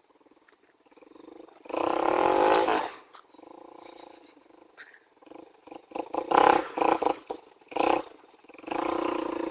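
Vehicle engine revved hard in repeated bursts through a homemade "fa lan" loud exhaust, giving a roaring blare. There is one long blast about two seconds in, a string of short blips around six to eight seconds, and another long blast near the end, with the engine running quieter in between.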